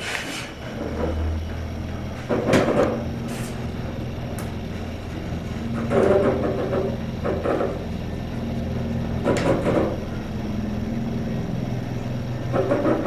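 L.H. Gay elevator running: a steady low hum of the car travelling, which starts about a second in and stops near the end. Several knocks and rattles from the car and its doors sound along the way.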